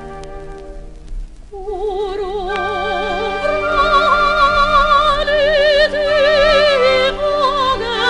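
Operatic soprano singing long, held notes with a wide vibrato over instrumental accompaniment in a slow Albanian song. The voice comes in about one and a half seconds in, after the accompaniment alone, and climbs higher as the phrase goes on.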